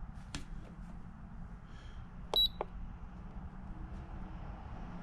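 Short, high electronic beep from a handheld ECU flashing tool about halfway through, with sharp button clicks around it, over a low steady hum.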